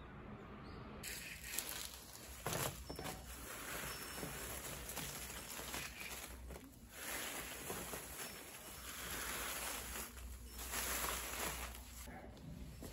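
Freshly picked green tea leaves rustling and crinkling as they are spread out by hand on a cloth, in uneven swells, with a couple of light clicks early on.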